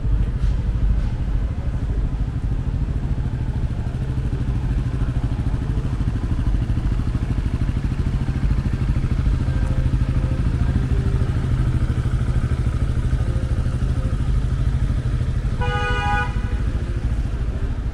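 Busy city street traffic: cars and a scooter idling and moving slowly in the lanes, a steady low engine rumble. A short horn beep sounds near the end.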